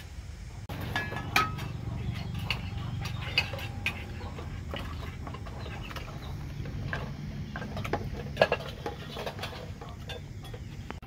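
Metal cookware clinking and clattering: an aluminium pot lid and utensils knocking against a cooking pot in a series of sharp, irregular clicks and knocks over a steady low rumble.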